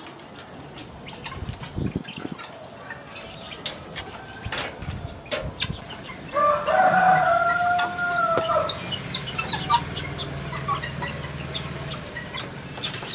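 A rooster crows once, a single held call of about two seconds in the middle, among scattered clucking of chickens.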